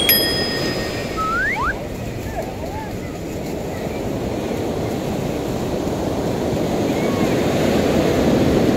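Surf breaking and washing up a sandy beach: a steady rushing that swells louder near the end as a wave breaks. A sharp click with a short bright chime at the very start.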